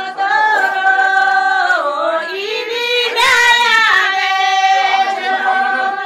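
A group of women singing a traditional Kinnauri folk song together without instruments, in long held notes joined by sliding changes of pitch.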